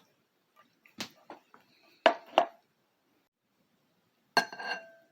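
A metal utensil clicking and clinking against a dish of ravioli: light taps about a second in, two sharper knocks around two seconds in, and one ringing clink near the end.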